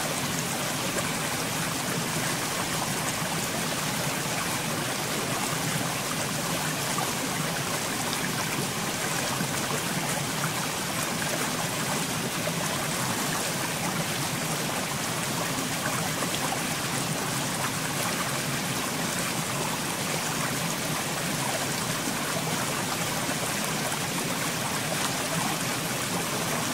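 Steady rushing of running water, like a flowing stream, unchanging throughout.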